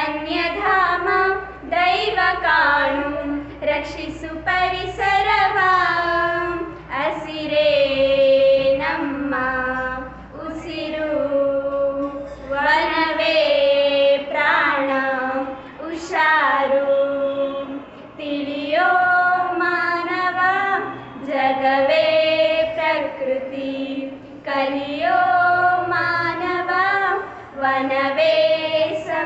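Two schoolgirls singing a Kannada environmental song together, in sung phrases a few seconds long with short breaks for breath between them.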